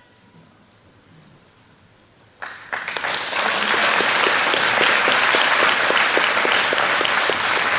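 Audience applauding in a large hall, starting suddenly about two and a half seconds in after a quiet pause and holding steady, with some single claps standing out at a regular pace of about three to four a second.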